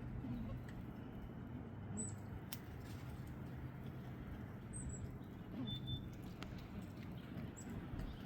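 Squirrels cracking and gnawing walnuts, heard as scattered sharp clicks, with three short high bird chirps and a steady low hum underneath.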